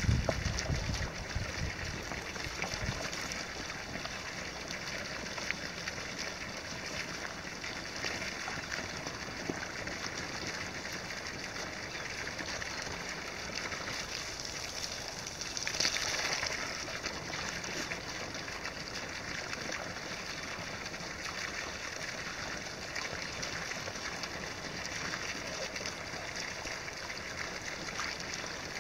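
Artesian well water pouring steadily from a pipe spout and splashing onto a concrete block and into a puddle, with a water bottle held under the stream being filled. A short low rumble at the very start, and the splashing grows briefly louder about halfway through.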